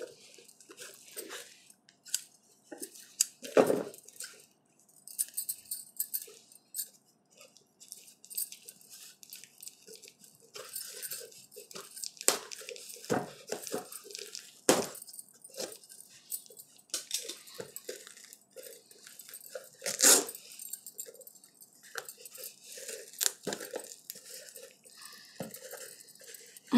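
Large scissors cutting and jabbing into a parcel wrapped in brown paper and packing tape, with the paper and plastic crinkling and crackling irregularly and a few sharper knocks. Near the end the wrapping is torn open by hand.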